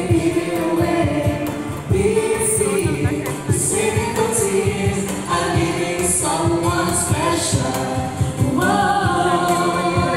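A small group of carolers singing together in harmony into microphones, heard through a PA speaker.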